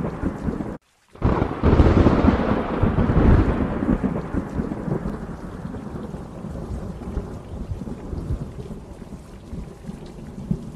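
Thunder rolling over steady rain: a deep rumble swells about two seconds in and slowly dies away while the rain hiss goes on.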